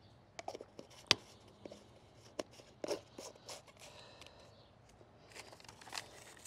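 Scattered clicks and knocks of plastic containers and a measuring scoop being handled while fertilizer is prepared, with one sharp click about a second in.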